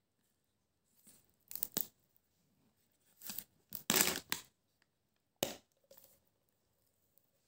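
Plastic snack packaging rustling and crinkling in several short bursts, the loudest about four seconds in, as a plastic drink bottle is handled and moved against crisp packets.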